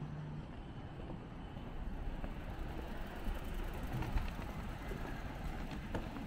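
Outdoor urban ambience: a steady low rumble of vehicle traffic, with a few faint clicks.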